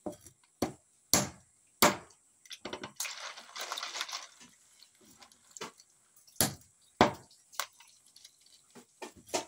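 Parang knife chopping down onto a round wooden chopping block in sharp, irregular strokes, cutting the shell tips off siput sedut (freshwater snails). Around three seconds in there is a softer rattling for about a second.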